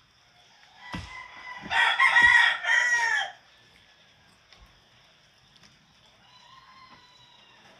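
A rooster crowing once, a call of about a second and a half with a falling final note, starting about two seconds in. A few dull chopping knocks sound just before and under it as chicken is cut up.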